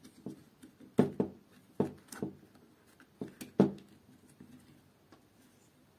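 Irregular clicks and knocks of hard plastic as the trigger switch and its wiring are worked loose from the opened housing of a corded hammer drill, the loudest about a second in and again about three and a half seconds in.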